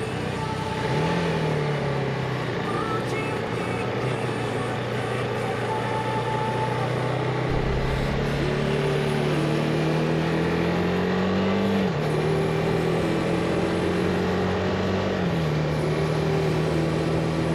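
Motorcycle engine accelerating on the road, its pitch climbing slowly and dropping at gear changes about one, twelve and fifteen seconds in, over steady wind noise.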